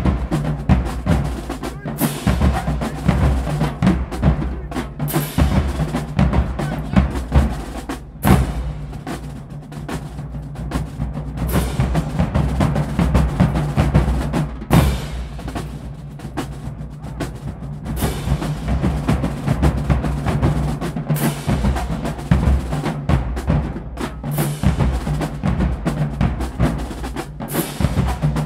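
Marching drumline playing a loud, driving cadence on snare drums, tenor drums and pitched bass drums. Crash cymbals are struck together in a sharp, ringing accent about every three seconds.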